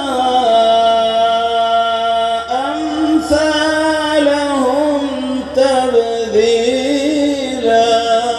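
A man chanting Quran recitation in a melodic tajwid style: long held notes with ornamented bends in pitch, broken by two short pauses for breath.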